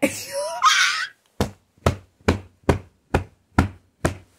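A brief vocal sound with a rising pitch, then seven sharp, evenly spaced knocks, a little over two a second.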